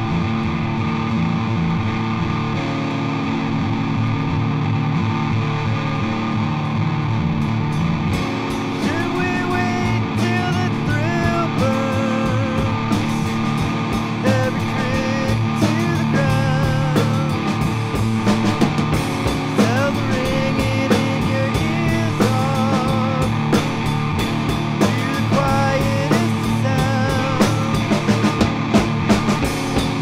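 Rock song on guitars: steady distorted electric guitar chords, then drums coming in about eight seconds in, with a sung vocal line over them.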